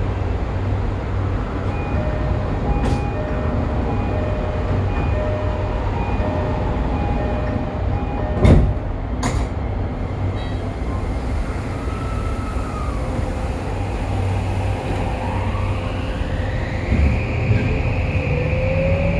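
Toei 5500 series subway train with a steady low rumble. Two sharp knocks come about eight and nine seconds in. From about fifteen seconds its Mitsubishi full-SiC VVVF inverter whine rises steadily in pitch as the train accelerates.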